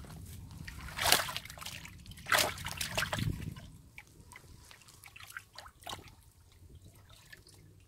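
A hand splashing and sloshing in shallow muddy water while grabbing at fish. There are a few louder splashes in the first three seconds, then smaller splashes and trickles.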